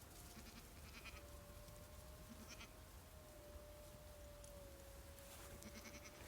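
Near silence: a faint steady tone that wavers slightly, with a few faint high chirps.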